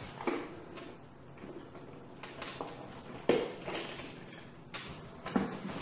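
Handling noise of a charger being worked out of a corner of a cardboard shipping box: rustling and scraping of cardboard and packing, with a few knocks, the loudest just past halfway.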